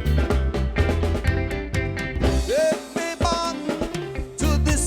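Reggae song with a steady drum-and-bass beat and guitar, a singing voice coming in briefly about halfway through.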